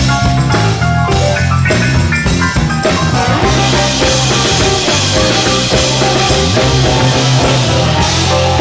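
Live band playing an instrumental passage of a song, with no singing: drum kit, keyboard, guitar and horns together at a steady beat.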